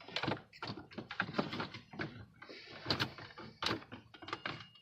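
Gauge cluster being worked against the dashboard and steering wheel: a run of irregular knocks, clicks and scrapes of handled parts.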